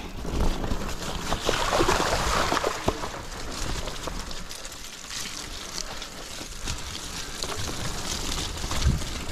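Mountain bike descending a dirt forest trail at speed: a steady rushing noise of tyres rolling over the dirt, broken by scattered sharp knocks and rattles from the bike over bumps, with a low rumble.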